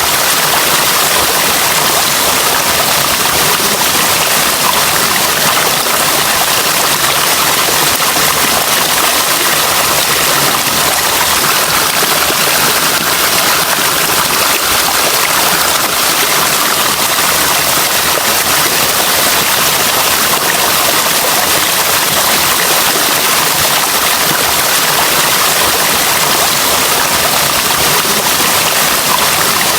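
Flowing water rushing steadily, an even hiss with no breaks or single splashes.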